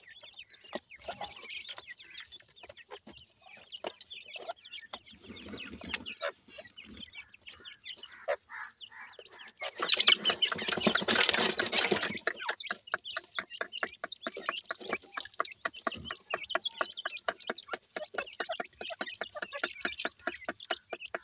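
Francolin chicks and their mother clucking and chirping while they peck in a basin of dry soil. About ten seconds in, a hand scoops up and drops loose soil with a loud, gritty rustle lasting about two seconds, followed by a fast, regular run of short clucking notes.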